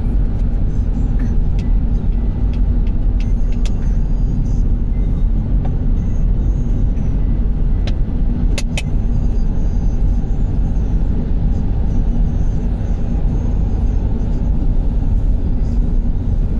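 Steady low rumble of road and engine noise inside a moving car's cabin, with two short clicks about halfway through.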